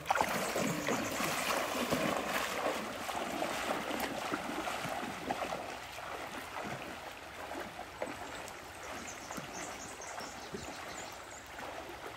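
Shallow river water running over a flooded crossing, with splashing steps of someone wading barefoot through it, loudest in the first few seconds, then a steady sound of running water.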